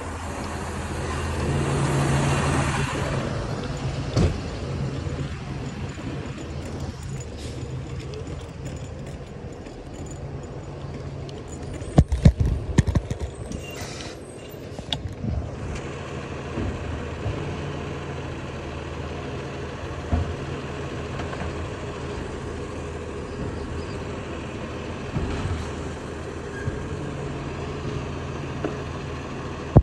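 Garbage truck engine running steadily, a low drone heard throughout, swelling louder for a couple of seconds near the start. Sharp knocks and rattles for a few seconds in the middle.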